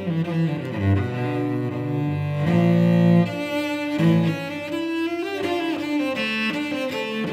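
Solo cello played with the bow: a melodic line of held notes, each changing to the next after about half a second to a second and a half.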